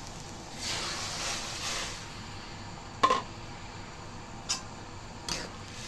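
Chilli broth of pounded paste and water heating in a wok as it comes to the boil: a hissing bubbling swells for about a second and a half, then three sharp clinks of kitchenware, the loudest about three seconds in.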